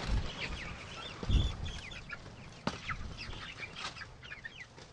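Young chickens in a flock peeping and cheeping, many short high calls overlapping, with a low thump about a second in.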